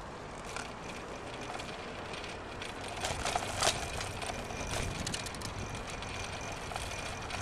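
Bicycle rolling over asphalt: steady road and tyre noise with frequent small rattling clicks, busiest and loudest about three to four seconds in.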